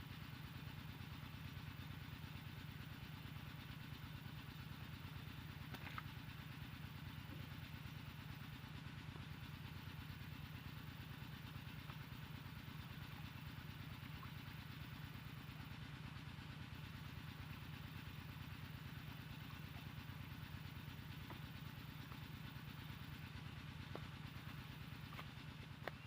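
A small engine running steadily at an even speed, with a fast regular pulse.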